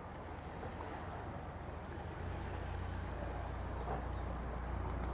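A motor boat's engine running with a low, steady drone that grows a little louder about two seconds in as the boat comes closer.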